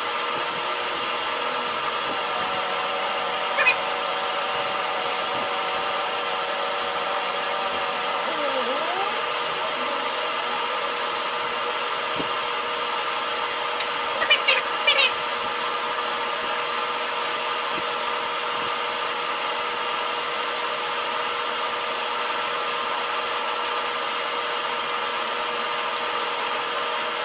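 Steady motor hum made of several constant tones, with brief crackling tears of masking tape about four seconds in and again about fourteen seconds in.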